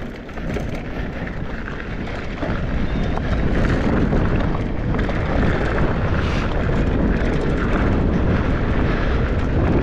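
Mountain bike rolling fast down a dirt trail: a steady rush of tyre and wind noise on the action camera's microphone, which grows louder about two and a half seconds in and then holds.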